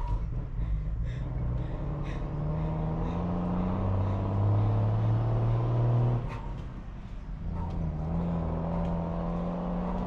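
A motor vehicle's engine running and accelerating, its pitch rising for a few seconds before it drops off about six seconds in, then building again.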